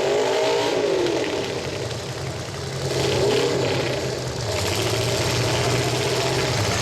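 Demolition-derby truck engines revving hard, their pitch rising and falling twice, once near the start and again about three seconds in, over a steady low engine drone. The trucks are hung up together, trying to pull free.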